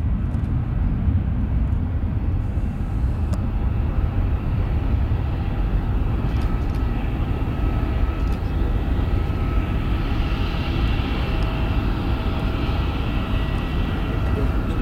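Ryanair Boeing 737-800's CFM56-7B turbofan engines at takeoff thrust: a steady low rumble as the jet rolls down the runway, lifts off and climbs away. From about halfway, a whine of several steady tones rises above the rumble, strongest near the end.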